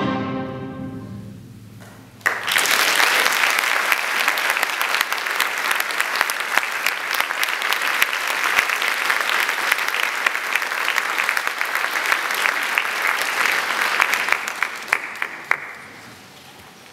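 A symphonic wind band's final chord dies away in the concert hall's reverberation. About two seconds in, the audience starts clapping all at once, and the applause fades out shortly before the end.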